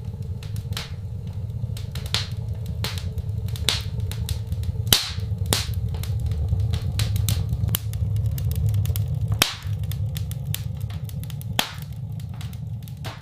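Wood fire burning in a stove: a steady low rumble with irregular sharp crackles and pops, a few of them louder.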